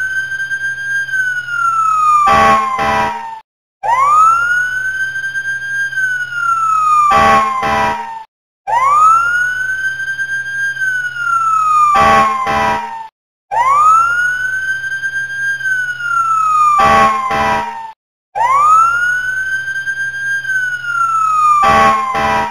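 A looped fire-engine siren sound effect: each cycle is a wail that sweeps quickly up, holds briefly and glides down, followed by a few short sharp blasts. It repeats about every five seconds with a short silent gap between repeats.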